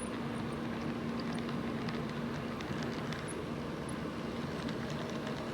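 HOn3 model locomotive running on the layout: a steady motor hum with faint scattered clicks of the wheels on the track.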